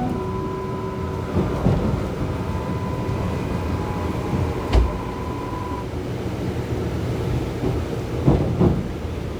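Passenger train running, heard from inside the carriage as it approaches a station: a steady rumble of the wheels on the track, with a thin steady whine that stops about six seconds in and a single knock a little before that.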